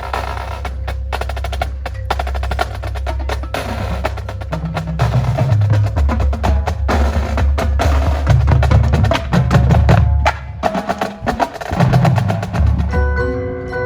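A percussion ensemble playing a fast drum passage: rapid snare-type strokes and rolls over a heavy low bass. Pitched mallet percussion such as marimba comes in near the end.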